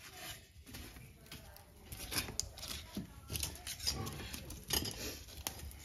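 Irregular crackling and clicking at a wood-fired chulha as the burning firewood sticks under the iron griddle are handled and pushed in, getting busier about two seconds in.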